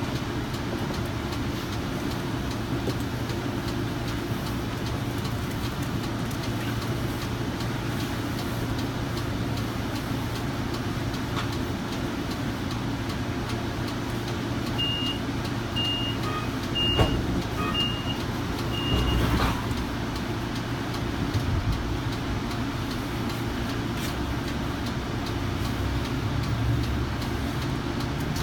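Inside a Kinki Sharyo light rail vehicle standing at a platform, with a steady hum from its equipment. About fifteen seconds in, a door-warning chime beeps five times, about a second apart, and the doors close with a knock. The car then pulls away, and its inverter drive's hum rises in pitch near the end.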